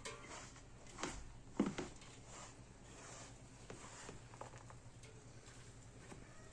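Hands working acorn flour in an aluminium pot: a soft, faint rustling, with a few short knocks against the pot, the loudest about a second and a half in.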